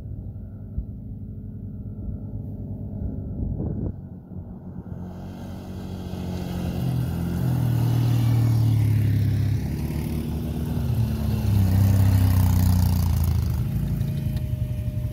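Quad-bike (ATV) engines running as two ATVs come up and pass close by on a gravel trail, one after the other, the engine note shifting in pitch as they accelerate, with tyre noise on the gravel. The first pass is loudest about eight seconds in, the second about twelve seconds in.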